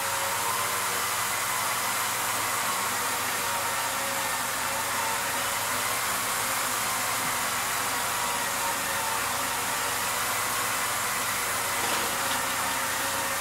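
Motors of a homemade motion-control camera rig running steadily as it drives the camera to its next position: an even hiss with a faint, slightly wavering whine.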